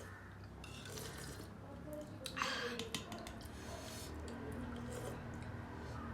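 Eating sounds: chewing and small utensil clicks against a dish, with one sharper clatter about two and a half seconds in, over a steady low hum.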